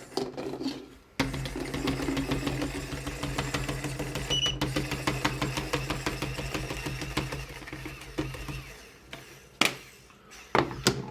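Paintball marker firing a long rapid string of reusable balls fed from a Spire force-fed hopper, with a steady hum under the shots. The string runs unbroken for about seven seconds and stops, the hopper feeding without a jam; a couple of single sharp clicks follow near the end.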